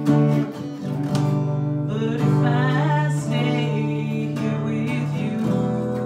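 Steel-string acoustic guitar strumming chords, with a woman singing a held, wavering line over them in the middle.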